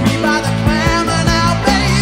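Hard rock music: electric guitar and drums with a steady beat, and a singing voice.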